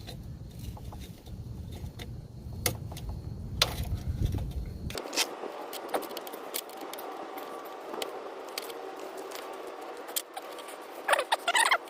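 Irregular metallic clicks and clinks of hand tools working on a corroded screw at the wheel well. A low rumble under the first few seconds cuts off abruptly, and there is a brief louder burst near the end.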